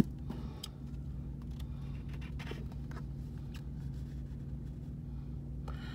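Steady low hum with a few faint, short scratches and taps on a scratch-off lottery ticket.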